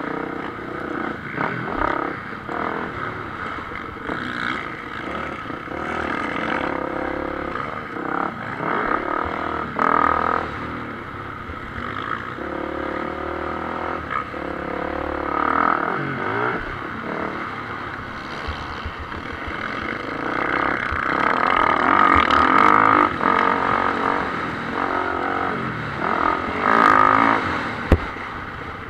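Motocross bike engine heard from on board, revving up and falling back over and over as the rider works the throttle around the dirt track, with a sharp click near the end.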